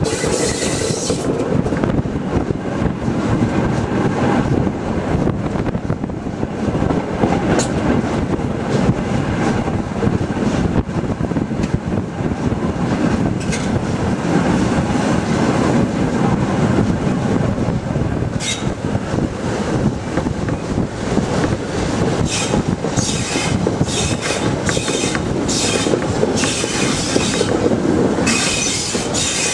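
Steady running rumble of a steam locomotive's wheels on the rails, heard from the cab as it rolls slowly through a yard. High-pitched wheel squeal comes and goes, mostly in the last third.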